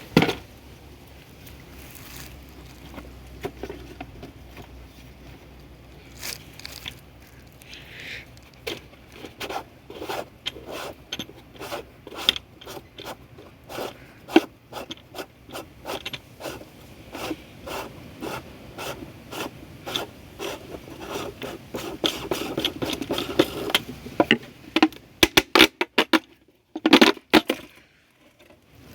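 Plastic packaging and dual-flush valve parts being handled and unpacked: an irregular run of clicks, knocks and scrapes that grows busier toward the end.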